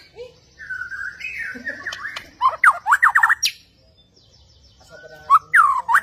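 White-rumped shama (Bornean murai batu) singing: warbled whistles, then a loud rapid run of sharp down-slurred notes about two and a half seconds in. After a short pause a new phrase starts near the end with a rising whistle and another fast run.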